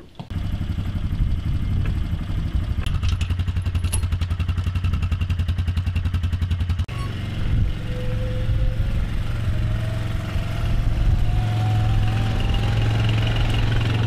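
Quad bike (ATV) engine idling with a fast, even putter. After an abrupt cut about seven seconds in it runs on with a faint whine that slowly rises in pitch.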